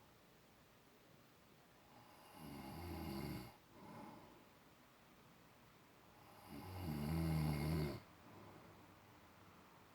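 A sleeping man snoring: two long snores about four seconds apart, each lasting about a second, the first followed by a short, softer breath.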